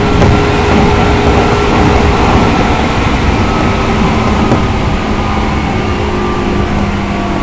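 JR East 205 series electric train running: a loud, steady rumble of wheels and traction equipment with faint whining tones that drift slowly in pitch.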